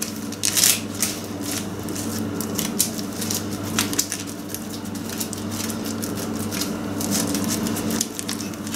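Baking paper rustling and crinkling under gloved hands pressing bread dough flat and out to the edges of the sheet, with a steady low hum underneath.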